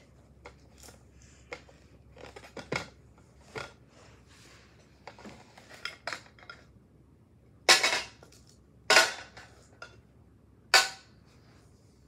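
Small hard objects clattering as they are handled: scattered light clicks and clinks, then three loud sharp clacks in the second half, each a second or two apart.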